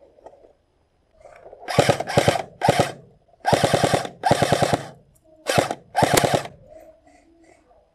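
Airsoft electric guns firing on full auto in seven short bursts, from about two seconds in to about six and a half seconds in, each burst a rapid rattle of shots.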